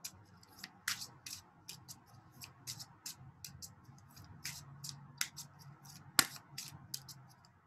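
Tarot cards being shuffled by hand: irregular light clicks and snaps of card stock, a few a second, the sharpest about six seconds in, over a faint low hum.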